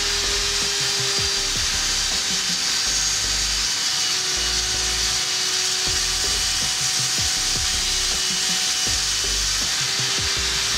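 Table saw running steadily as its blade crosscuts a glued-up board of ash and mahogany strips pushed through on a crosscut sled, a steady hum under the cutting noise.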